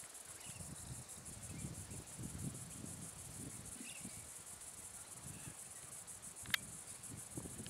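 A steady, high-pitched chorus of insects trilling, over a low rumble, with one sharp click about six and a half seconds in.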